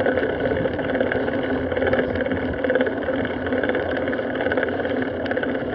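Steady wind rush and tyre noise on a moving bicycle's action-camera microphone, with light rattling clicks from the bike.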